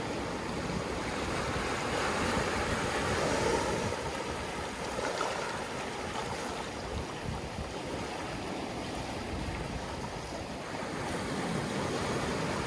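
Gentle ocean surf washing in over scattered lava rocks and lapping onto a sandy shore. The wash swells about two to three seconds in, then eases to a steady hiss.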